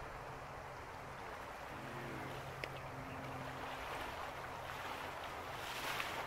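Steady rush of shallow river water, with splashing from someone wading through it near the end.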